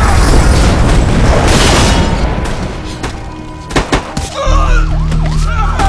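Action-series soundtrack: a dense barrage of gunfire over dramatic music, fading over the first two seconds, then two sharp shots a little under four seconds in. From about four and a half seconds, police sirens wail over a low steady drone.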